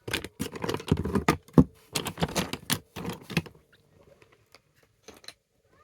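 Fridge magnets clattering and clicking against one another as a hand rummages through a box of them: a dense run of clicks and rattles for about three and a half seconds, then a few scattered clicks.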